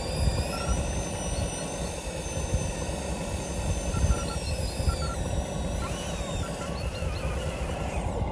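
Electric drive motor and gears of a 1/10-scale RC crawler whining as it crawls, the pitch rising about half a second in, holding, then falling away about five seconds in, with a few shorter rises near six seconds, over a steady low rumble.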